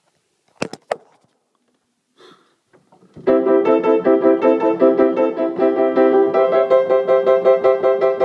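A few handling knocks, then about three seconds in a piano starts up, played fast with a quick stream of notes.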